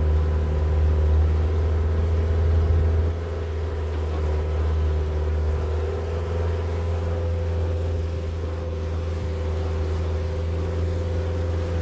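Engine of a canal tour boat running steadily under way, a low drone with a steady hum above it, easing off a little about three seconds in.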